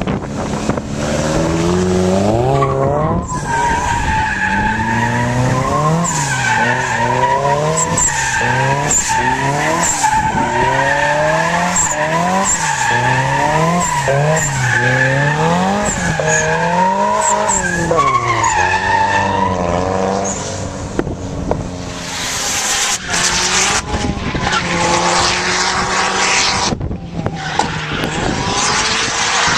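Drift car sliding sideways with its tires squealing steadily. The engine revs up and falls back about once a second as the driver works the throttle to hold the slide, and the squeal and revving die away after about twenty seconds.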